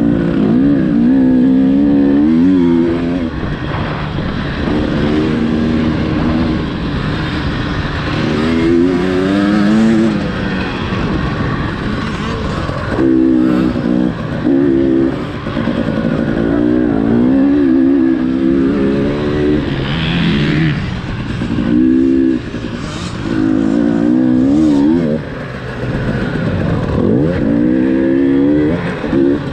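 Fuel-injected two-stroke single of a 2018 KTM 300 TPI dirt bike, heard from the rider's seat, revving up and dropping back again and again as the throttle is worked, about a dozen climbs in pitch with brief dips between.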